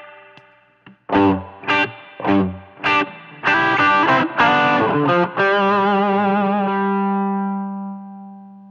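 Electric guitar played through the Kardian Serotonin overdrive pedal, a Tube Screamer-style overdrive. Four short distorted chord stabs come first, then a quick burst of strummed notes, then a last chord left to ring and fade away.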